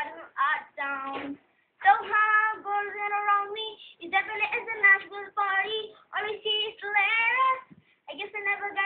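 A boy singing a song alone, with no accompaniment: a pitched voice holding and sliding between notes, breaking off briefly for breath about one and a half seconds in and again near the end.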